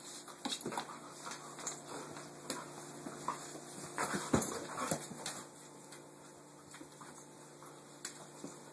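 Dog play-wrestling with another pet on a vinyl floor: scuffling and claw clicks, short whining dog noises, and a louder thump about four and a half seconds in.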